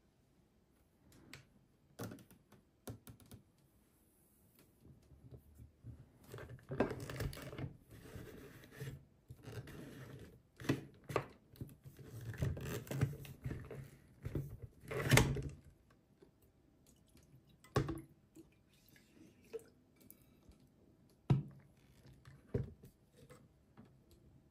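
Hands working the plastic packaging of a Magic Mixies Pixlings potion-bottle toy: the clear plastic outer shell rustles and crackles as it is worked off, mostly through the middle, with separate sharp clicks and knocks of hard plastic before and after.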